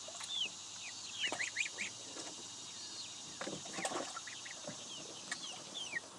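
Young poultry peeping: many short, high-pitched, falling peeps in a steady stream, with a few lower calls from adult fowl about halfway through.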